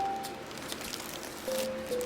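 Background music: a slow, simple melody of clear held notes, one at a time, over soft ticking.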